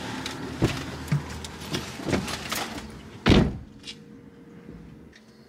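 Someone getting out of a parked car, heard from inside the cabin: a few clicks and knocks, then the car door shut with a thud a little over three seconds in.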